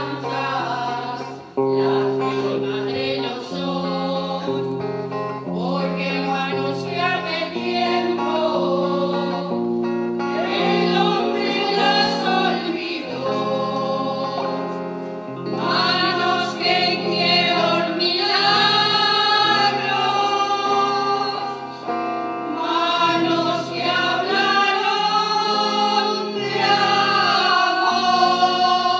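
Devotional song: several voices singing over held low instrumental notes.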